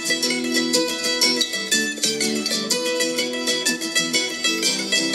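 Instrumental intro theme music: a fast run of sharply picked, plucked-string notes.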